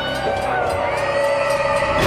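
Background music of sustained, layered tones.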